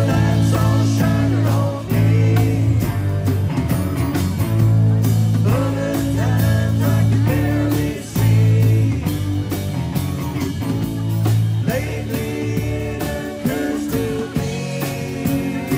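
Live band playing rock music: acoustic guitar, bass and drums keeping a steady beat, with singing.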